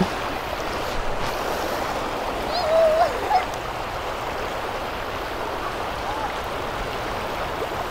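Fast-flowing floodwater rushing steadily, with a short call from a voice about two and a half seconds in.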